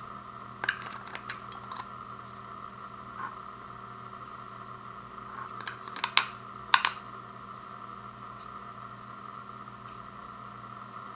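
Small plastic clicks from handling an onn wireless optical mouse while AAA batteries are pushed into its battery compartment, with a few light clicks in the first two seconds and louder sharp clicks about six to seven seconds in, over a steady hiss.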